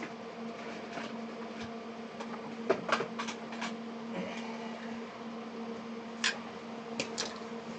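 Steady low electrical hum with a handful of short clicks and rustles of small parts being handled: a cluster about three seconds in and single clicks near the end.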